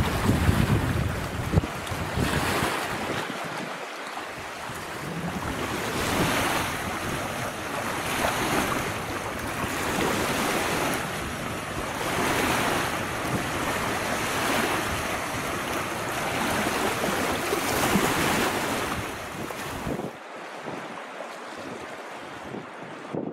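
Small wind-driven lake waves splashing and lapping against rocks and a sandy shore, coming in surges every couple of seconds, with wind buffeting the microphone. About 20 seconds in, the sound changes to a quieter wind hiss.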